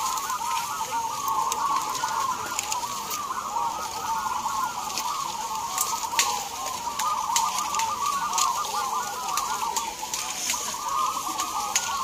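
Many caged zebra doves (perkutut) cooing at once: a dense, continuous chorus of short, overlapping rolling coos.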